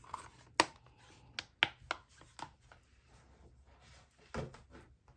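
Clear plastic stamp-set and die storage cases being handled and set aside on a desk: a scatter of sharp plastic clicks and taps, with a duller knock about four seconds in.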